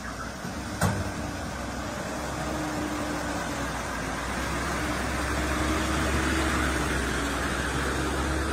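Cab-over truck fording a flooded river crossing: its engine running steadily under the rush and splash of water pushed aside by the wheels, growing louder as it nears. One sharp click about a second in.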